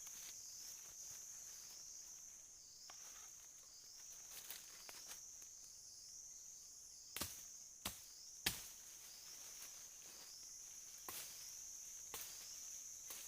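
Faint, steady high-pitched insect chirring. A few sharp knocks or chopping strikes cut in, the three loudest a little past the middle.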